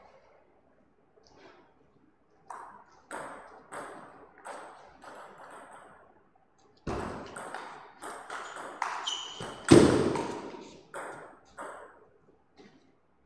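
Table tennis rally: the celluloid ball clicking off the table and the rubber bats at a steady pace, about one hit every half second or so. Louder, heavier knocks and thuds come in the last few strokes, the loudest near ten seconds in, before the point ends.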